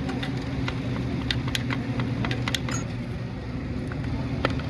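Light metal clicks and clinks of tools and engine parts being handled, about a dozen scattered through, over a steady low mechanical hum.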